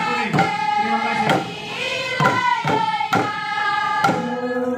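A group singing a Papuan welcome chant together while beating tifa hand drums in a steady rhythm, about two drum strokes a second.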